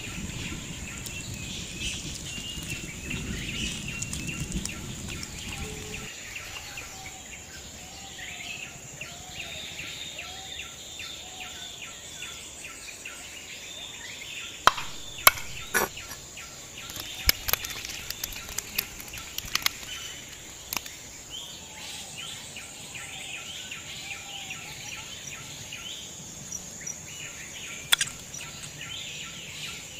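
Birds chirping over a steady high insect drone, with a low rumble that stops about six seconds in. Scattered sharp knocks come through the middle, and one more near the end, where a knife strikes a wooden cutting board.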